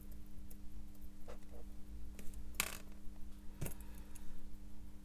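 A few small metallic clicks and a short rattle from a watchmaker's fine steel hand tool working on a watch movement in a metal movement holder; the loudest comes about halfway through, with a sharp click just after.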